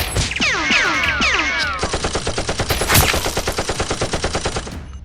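Rapid automatic gunfire, about a dozen shots a second, cutting off suddenly near the end, with one louder shot about three seconds in. It is preceded by a flurry of falling whistling tones in the first two seconds.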